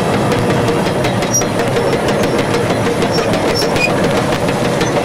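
A train running over rails on a film soundtrack played through loudspeakers in a hall: a steady rumble with fast rail clicks and a few short, high metallic squeaks.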